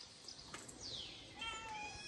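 A kitten gives one short, high-pitched mew about a second and a half in, just before a thin falling whistle-like glide fades out.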